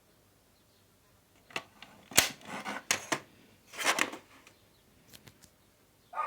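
A film disc case and its packaging being handled: a loud sharp click a little after two seconds, then a few more clicks and short rustles, and faint ticks near the end.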